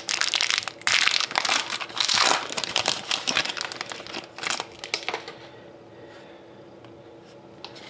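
Foil trading-card pack wrapper crinkling as it is torn open and the stack of cards is slid out; the crinkling stops about five seconds in.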